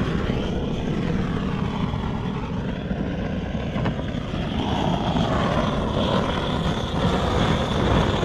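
Handheld gas blowtorch on a screw-on canister running with a steady rushing flame. It is heating black HDPE plastic patches to weld them onto a cracked polyethylene canoe hull.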